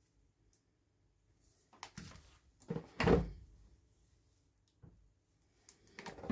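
Hands handling toy packaging: a cluster of rustles and knocks about a third of the way in, the loudest part, then a single click, and another cluster of knocks and rustles near the end.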